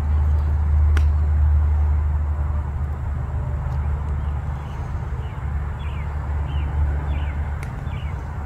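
Low steady outdoor rumble, with a sharp knock about a second in and another near the end, and a few short high chirps in the second half.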